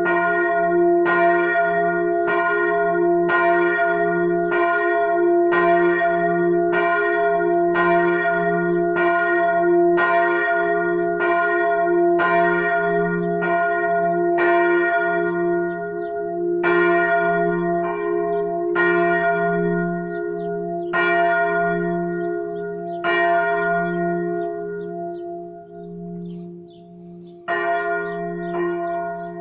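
The large f' bell (Glocke 1) of a church tower swinging full circle, struck about once a second over a deep, steady hum. About sixteen seconds in, the strokes slow and fade as the bell is rung down. Near the end, strokes start again in quicker succession, as the full peal of all four bells begins.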